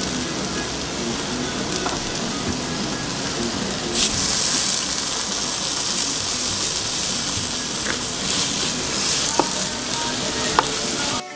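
Steak sizzling steadily on a hot plate, a continuous frying hiss. A few sharp clinks of cutlery come through, the loudest about four seconds in and two more near the end.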